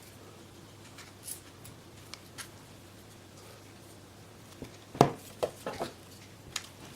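Scissors trimming excess fabric around a headphone ear cup: a few scattered short snips and clicks, with a sharper cluster about five seconds in.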